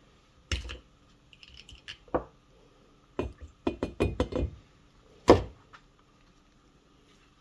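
Carburetor parts and hand tools knocking and clicking as they are handled and set down on a workbench. The knocks come in irregular groups, with a quick cluster around four seconds in and the loudest knock just after five seconds.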